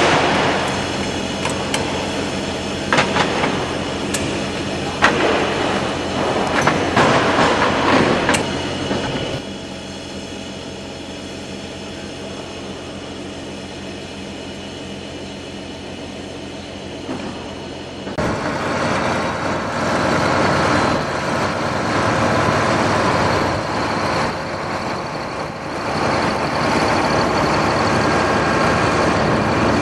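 Machinery running with a steady low hum and a noisy wash over it, with a few knocks in the first several seconds; the sound drops abruptly about nine seconds in and comes back louder about eighteen seconds in.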